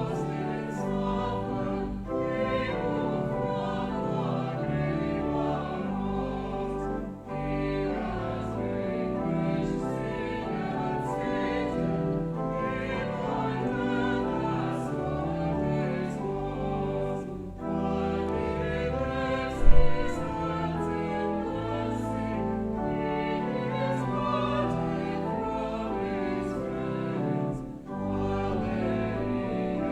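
Choir singing a hymn with instrumental accompaniment, in long held phrases with short breaks between them. A single sharp thump just before two-thirds of the way through is the loudest moment.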